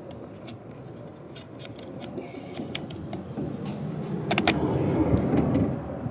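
Scattered sharp clicks and light rattles of small metal and plastic parts and tools being handled during a car door-lock replacement, with a pair of louder clicks about four seconds in, over a low background rumble.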